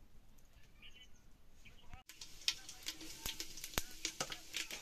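Hot oil with turmeric sizzling in an aluminium pot over a wood fire, from about two seconds in, with many sharp pops and crackles. Before that, a quiet stretch with a few faint chirps.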